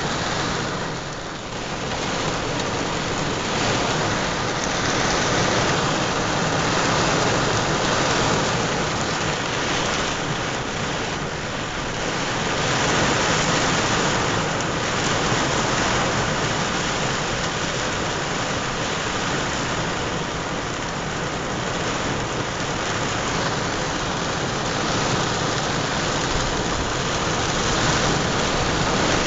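Heavy rain beating steadily on a GMC pickup truck, heard from inside the cab, as a dense, even hiss with no separate strikes.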